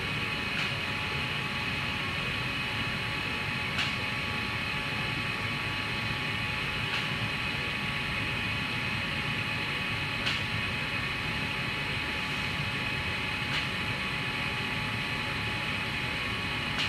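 Fiberglass chopper gun spraying resin and chopped glass strand onto a turning tank mandrel, laying the chop liner: a steady mechanical whine over a hiss, with a faint click about every three seconds.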